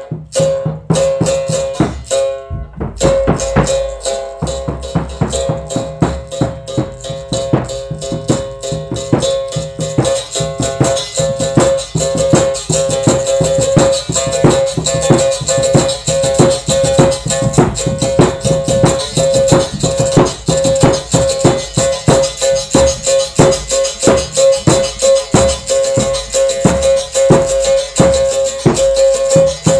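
Live percussive music led by a berimbau, its struck strokes mixed with the shake of a caxixi basket rattle. Fast, even strokes sound over a steady held note, growing busier about ten seconds in.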